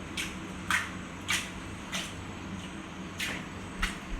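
A pot of cooked Indian gooseberries being shaken and tossed by hand to work roasted spice powder down to the bottom: a short swish or rattle of the gooseberries shifting in the pot about every half second, some seven times.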